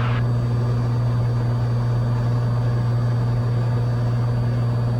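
Cessna 182 Skylane's piston engine and propeller in level cruise, a steady, unchanging cabin drone with a strong low hum.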